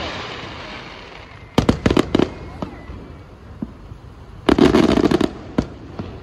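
Aerial fireworks shells bursting. A crackling hiss fades over the first second, a quick cluster of sharp bangs comes about one and a half seconds in, and a denser rapid volley of bangs follows a little before the end, with a few single reports between.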